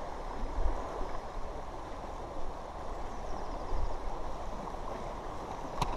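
Fast, shallow river water rushing over stones: a steady noise, with one sharp click a little before the end.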